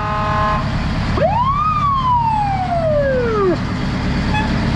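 Fire engine passing: a brief horn blast, then its siren rises quickly about a second in and falls away slowly over about two seconds, over the steady rumble of the truck's engine.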